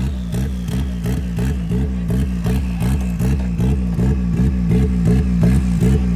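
Off-road competition 4x4's engine running hard under load, its note pulsing regularly about four or five times a second.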